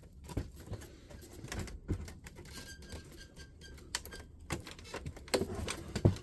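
Scattered light clicks and knocks of plastic and metal parts being handled and pried as a fax machine is taken apart by hand, with a couple of louder knocks near the end.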